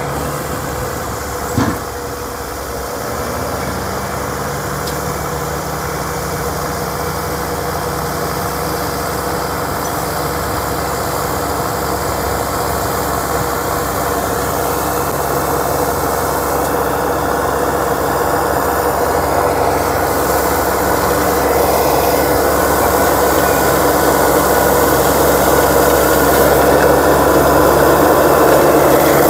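Diesel engine of a Caterpillar D6T LX crawler dozer running steadily and growing gradually louder, with a short knock about a second and a half in.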